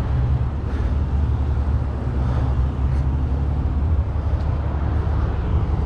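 Motorcycle engine running at low speed, a steady low rumble picked up by a helmet-mounted camera.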